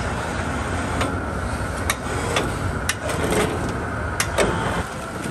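Several sharp metal clanks and clicks from a hook and chain hoist knocking against a stainless-steel crawfish boiler and its mesh basket as it is worked and lifted. Under them runs the steady low noise of the boiling rig.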